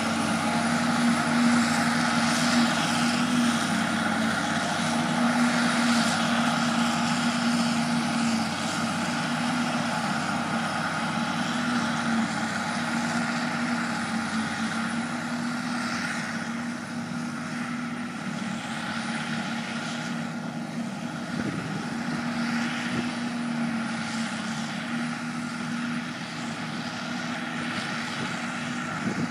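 A self-propelled forage harvester chopping grass for silage, with a tractor and trailer running alongside: a steady engine drone with a high whine held on one pitch. It slowly grows quieter as the machines move away.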